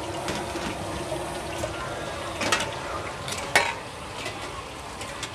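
A long metal ladle stirring and scraping a stir-fry of vegetables and pork skin in a big metal pan over a steady sizzle, with a few sharp clanks of ladle on pan, the loudest about three and a half seconds in.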